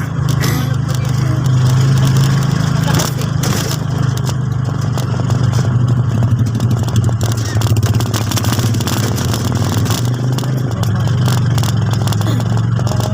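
Vehicle engine running steadily, a low drone with scattered clicks and clatter over it.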